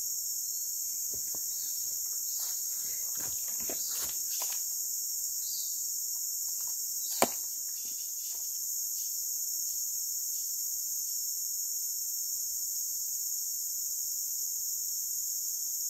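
Steady, high-pitched chorus of forest insects, with a few faint soft knocks in the first seconds and one sharp click about seven seconds in.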